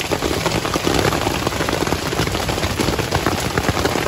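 Hailstorm: hailstones with rain pelting the ground in a dense, unbroken patter of countless small hits.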